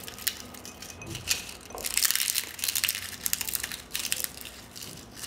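Dried bay leaves crumbled by hand into a small bowl: a dense run of dry, brittle crackles and snaps, thickest about two seconds in.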